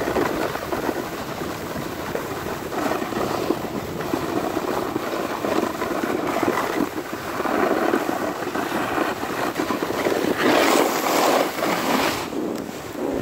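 Snowboard sliding over packed, groomed snow: a continuous scraping hiss mixed with wind on the microphone, swelling and fading with the turns and loudest near the end.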